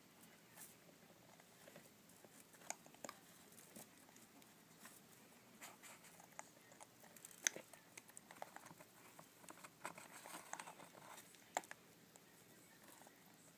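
African grey parrot chicks shuffling and nibbling: faint scattered clicks, taps and scratchy rustles, with one sharper click about halfway through.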